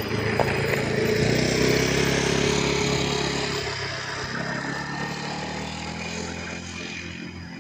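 An engine running with a steady hum, loudest a second or two in and then slowly fading.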